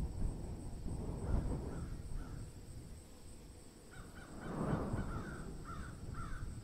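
A bird calling in short repeated calls, a couple about a second and a half in and a run of about five in the second half, over a low rushing noise that swells in the second half.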